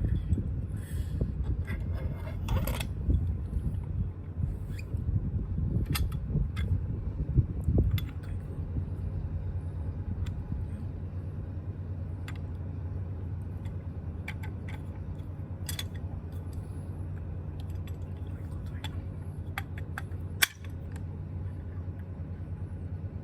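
Yamaha Tricity 155 scooter engine running, uneven for the first several seconds and then settling to a steady idle hum, with scattered light clicks and one sharp knock about 20 seconds in.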